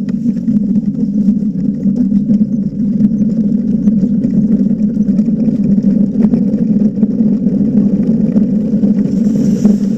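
Speedluge sled's runners rumbling steadily on the ice of a bobsleigh track as the sled slides.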